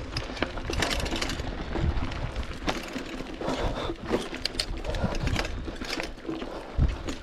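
Mountain bike rolling over rocky, loose-stone single track: tyres crunching on stones and the bike rattling, with many sharp clicks and knocks and a heavier knock near the end.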